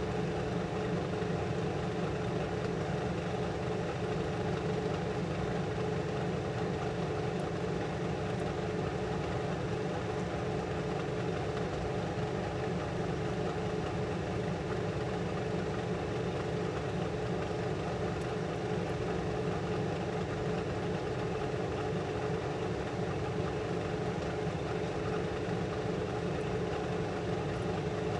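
Clean-bench blower fan running with a steady, unchanging hum.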